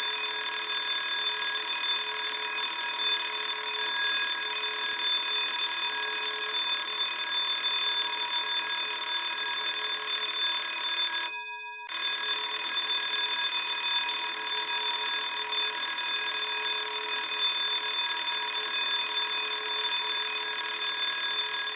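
Classic school bell ringing continuously with a steady, unbroken ring. Near the middle it breaks off for about half a second, then rings on.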